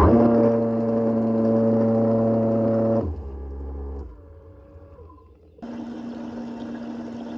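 Brushless DC motor of a small 3D-printed water pump running with a steady pitched hum. About three seconds in it shuts down and spins down, its tone falling in pitch. Just before six seconds a fainter steady hum comes in.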